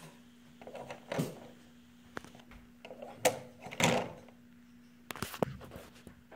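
Ring magnets on a rod knocking against each other as a finger pushes the stack down and the repelling magnets spring back up. There are several sharp clacks, with a faint steady hum behind.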